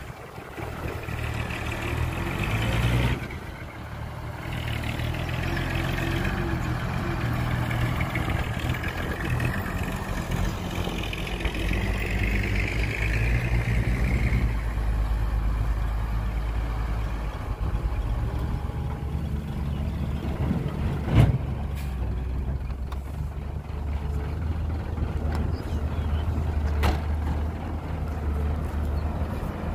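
Heavy diesel machinery working, an excavator and a dump truck, with a steady low engine note. One sharp knock comes about two-thirds of the way through and a fainter one near the end.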